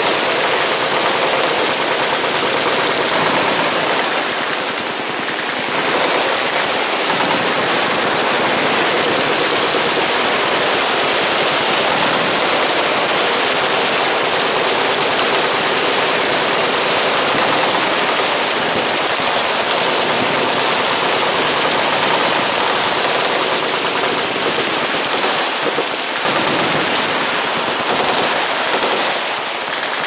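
Many machine guns firing at once from a range's firing line: continuous, overlapping automatic fire with no break, easing slightly about five seconds in and again near the end.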